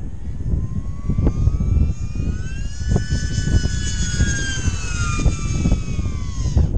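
TwinRad FPV flying wing's twin electric motors and propellers whining high overhead. The pitch rises over about three seconds, then falls and cuts off suddenly near the end. Wind buffets the microphone underneath.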